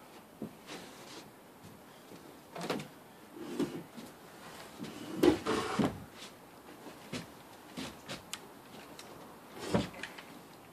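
Wooden knocks, bumps and scraping as a heavy pallet-board wall panel is lifted off the shed's wooden deck and tilted upright. The loudest knocks come about five seconds in and again near the end.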